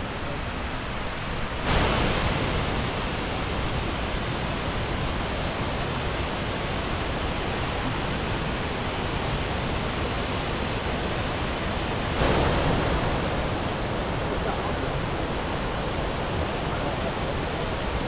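Tvindefossen waterfall's water falling down its rock tiers: a steady rushing noise. It grows suddenly louder about two seconds in and again about twelve seconds in.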